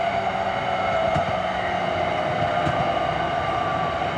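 Running sound of a JR East E231 series electric train with a Hitachi two-level IGBT VVVF inverter: the traction motor and inverter whine glides slowly down in pitch over steady rolling noise, with a couple of rail-joint clicks.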